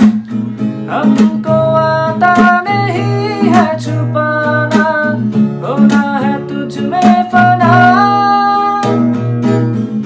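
Background music: a Hindi song with acoustic guitar and a gliding melody line over steady low chords.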